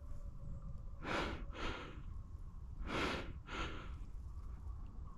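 A person breathing heavily close to the microphone: two in-and-out breath pairs, about two seconds apart, over a steady low rumble.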